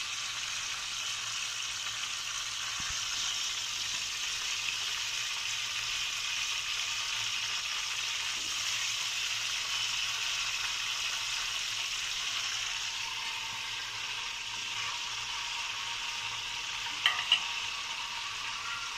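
Green peppers sizzling steadily in hot oil in an aluminium pot, fried and ready to come out. Near the end come two sharp clicks close together.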